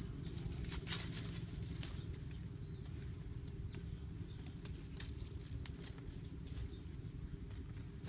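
Leaves and twigs rustling and crackling in short bursts as a leafy bush is pushed aside and handled, over a steady low rumble.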